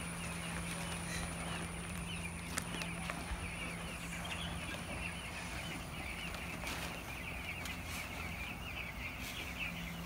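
A large flock of 12-day-old broiler chicks peeping continuously, many high peeps overlapping, over a low steady hum.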